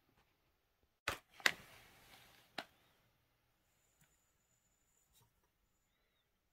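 Two sharp clicks close together, followed by a short fading rustle and a single fainter click; after that only a couple of very faint ticks.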